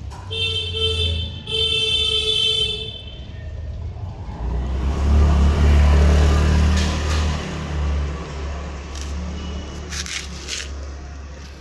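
Two car horn blasts, about one and one and a half seconds long. Then a vehicle engine rumbles, swelling to its loudest near the middle and easing off toward the end.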